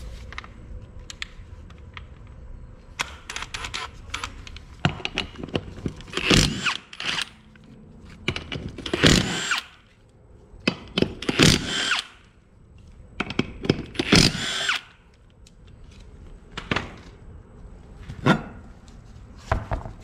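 Cordless power tool with a socket spinning the lug nuts off an ATV's front wheel. Its motor whines in four longer bursts and two short ones near the end, with the pitch shifting within each burst and clicks and knocks between them.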